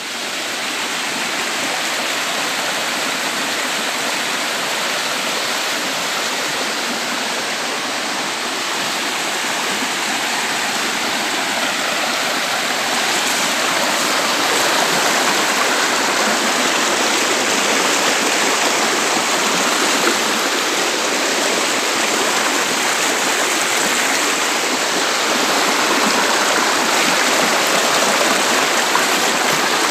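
Shallow, fast-flowing rocky stream rushing and splashing over and between boulders: a steady, loud water rush that grows a little louder about halfway through.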